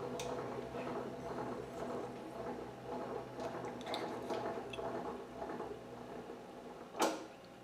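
Faint small clicks and handling noises of metal tooling being worked at a milling machine, over a low steady hum, with one sharp knock about seven seconds in.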